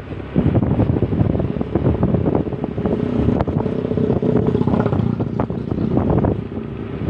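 Wind buffeting the microphone on a moving Honda Beat scooter, with the scooter's small engine and road noise running underneath.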